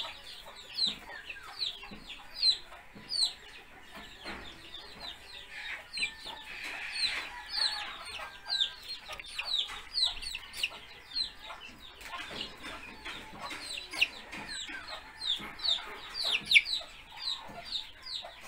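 Chicks peeping: a constant run of short, high, falling notes, several a second.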